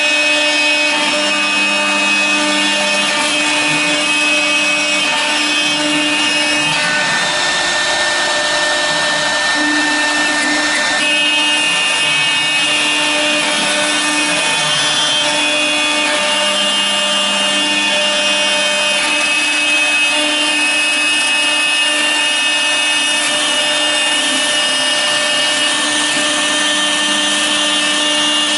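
CNC router spindle milling clear acrylic sheet: a steady whine made of several constant tones over a rough cutting noise. The higher tones shift a few times as the cut goes on.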